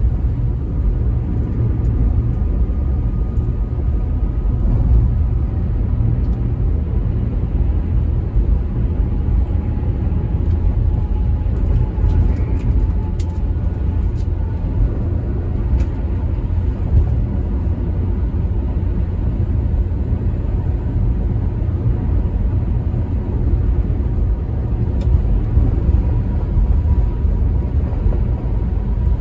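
Steady low rumble of road and engine noise heard inside a car cruising at highway speed on a concrete toll road.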